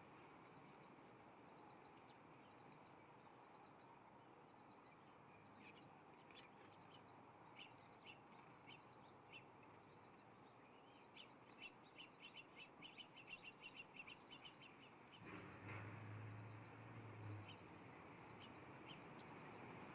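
Wild birds chirping, faint: a few short high calls at first, then quick runs of chirps crowding together from about a third of the way in. Near the end a low hum with a soft rush comes in for about two seconds.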